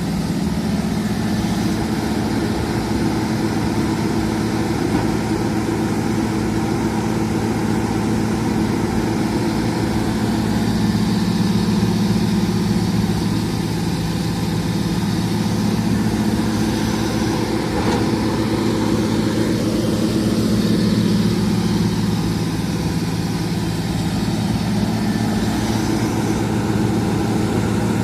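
Excavator's diesel engine running steadily, its low hum swelling a little louder twice, about ten and about twenty seconds in.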